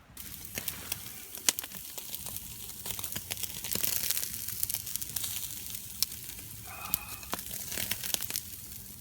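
Steak frying in a pan, a steady sizzle with many sharp pops and spits.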